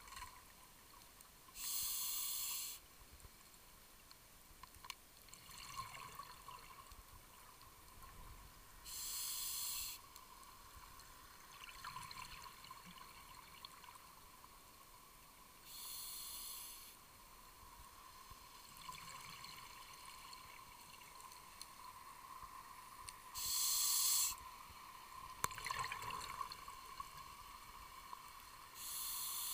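Scuba diver's regulator breathing underwater: five bursts of exhaled bubbles about seven seconds apart, each lasting about a second, with fainter inhalation sounds between them.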